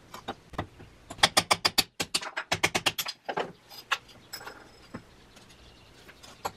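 Claw hammer tapping a fired-clay mold to crack it off a stone casting on a wooden board: a quick run of sharp clinking taps, most of them between about one and three and a half seconds in, then a few scattered ones.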